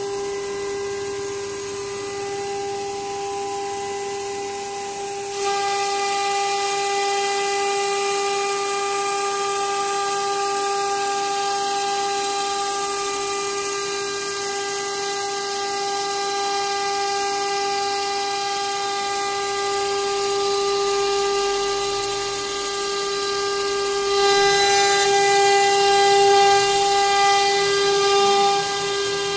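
CNC router spindle whining steadily at high speed while a V-bit carves a wooden door panel, with a hiss of cutting over the whine. The sound steps up in level about five seconds in and grows louder again for a few seconds near the end.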